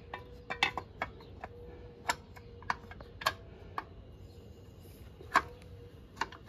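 Irregular light clicks and taps of a brake caliper cover knocking against the brake caliper as it is worked by hand into place, the loudest about five seconds in.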